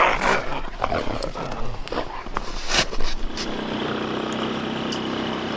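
Alaskan husky sled dogs playing in the snow, with excited yips and scuffling for the first three seconds. About three and a half seconds in, a steady engine drone takes over: the snowplow vehicle running as its front blade pushes snow.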